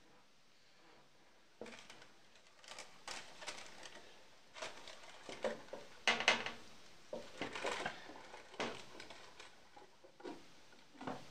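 Rustling of parchment paper and clinks of a glass lid being handled and set on a frying pan: irregular clicks and knocks with a louder clatter about six seconds in.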